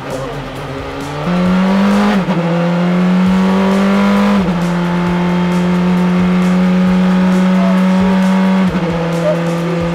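Praga R1 race car's 2-litre turbocharged four-cylinder engine heard from the cockpit under hard acceleration. The revs climb and then drop sharply twice within the first five seconds as it upshifts, hold steady, and drop once more near the end.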